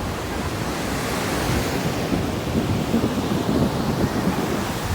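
Ocean surf washing in, building to a swell in the middle and easing off near the end, with wind rumbling on the microphone.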